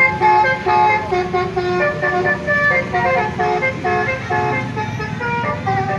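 Basuri telolet horn playing a melody: a quick run of loud, clear horn notes stepping up and down in pitch.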